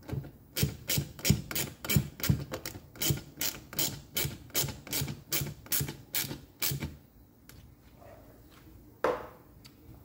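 Quarter-inch drive ratchet clicking in quick, even strokes, about three clicks a second, as it drives a sheet metal screw in; the clicking stops about seven seconds in.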